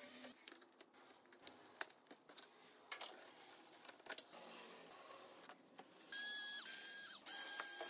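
Small cordless electric screwdriver whirring in several short runs, its motor whine ramping up and down as each run starts and stops, driving T25 Torx bolts on the motorcycle's crash bar guard. Before that come faint clicks and knocks of the guard and its fittings being handled.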